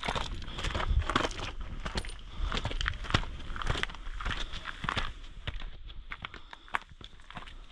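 Footsteps of a person walking on a rough outdoor path, about two steps a second, growing quieter in the last couple of seconds.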